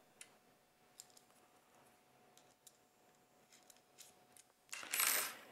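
Light clicks and ticks from small metal screws and the holster's insert block being handled, a few faint clicks spread out over several seconds, with a short hiss near the end.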